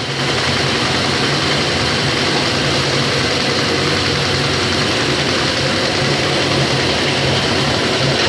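Welding electrode production machinery running steadily: a continuous mechanical din over a low hum.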